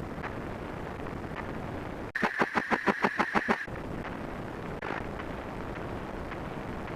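Sound effects: a steady rumbling noise, cut into about two seconds in by a loud burst of rapid pulses, about eight a second with a high tone over them, that stops suddenly after about a second and a half.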